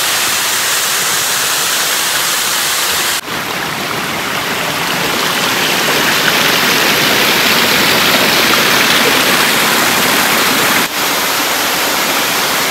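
Rushing water of a forest creek and its waterfalls pouring over rock ledges: a loud, steady rush. It breaks off for an instant about three seconds in and again near the end.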